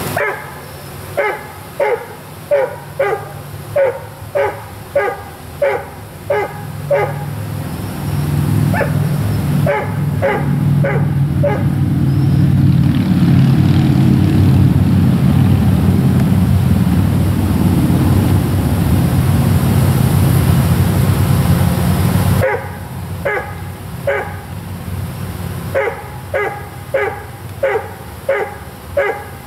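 A dog barking in steady runs of about two barks a second. Through the middle stretch a loud low rumble takes over, then stops abruptly, and the barking resumes.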